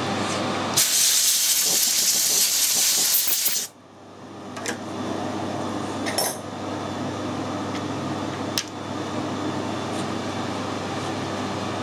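Metal lathe and shop machinery humming steadily, broken about a second in by roughly three seconds of loud hiss that cuts off abruptly. A few light metallic clicks follow as the hum settles back.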